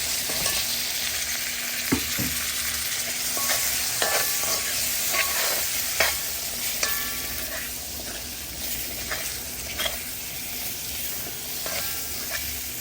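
Onion, garlic, pepper and potato frying in hot oil with curry powder, masala and jeera, a steady sizzle. A spoon stirs through the pot, with scattered clinks and scrapes against the pan.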